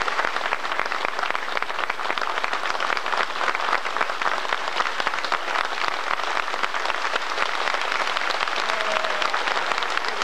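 Hall audience applauding, a dense, steady clatter of many hands clapping.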